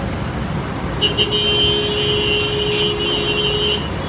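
A bus's 'telolet' musical air horn sounding one steady, held chord for nearly three seconds, starting about a second in, over road traffic noise.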